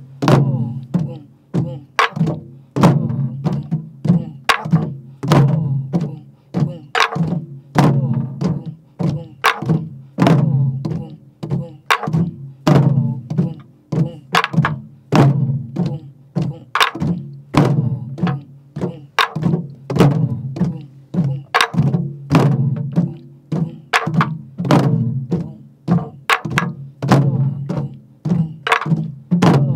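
Sori-buk, the Korean pansori barrel drum, played with a wooden stick and the bare palm in the jajinmori rhythm. Low strokes on the drumheads alternate with sharp wooden clacks of the stick on the drum's shell, in a cycle that repeats every few seconds.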